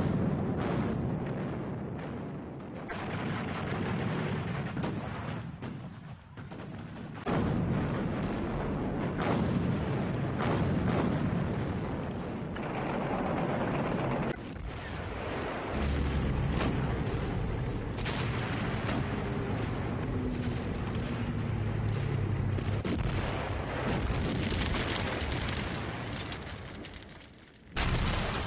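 Battlefield gunfire and explosions: a dense mix of rifle and machine-gun shots with heavy booms of artillery fire. It runs on almost without pause, easing briefly about six seconds in and again just before the end.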